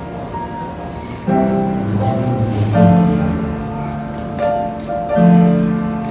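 Upright piano played as a slow improvisation: sustained chords ringing on, a new chord struck every second or so, with deep bass notes under the second chord.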